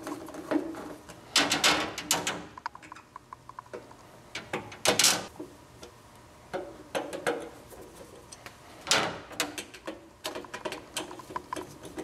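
Screws being fastened back into the gas water heater's sheet-metal burner access cover with a hand tool: scattered metallic clicks, taps and short scrapes in irregular clusters.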